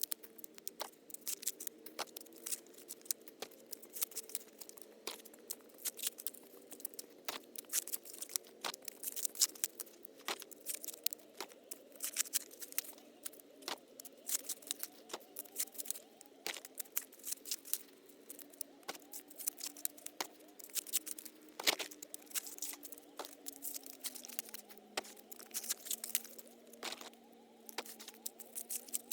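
Dry corn husks and leaves crackling and tearing as they are handled, in quick irregular snaps. A faint steady hum runs beneath and drops a little in pitch near the end.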